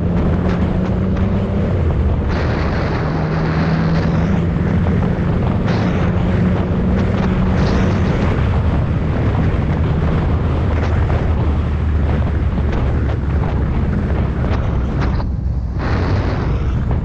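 2014 Yamaha FZ-09's inline three-cylinder engine running at road speed, under a heavy, continuous rush of wind over the GoPro's microphone.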